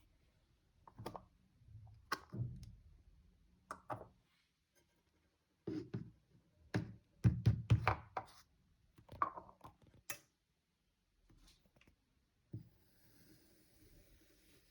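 Kinetic sand being handled and cut: a series of irregular soft knocks and thuds with a few sharp clicks, and a faint hiss near the end.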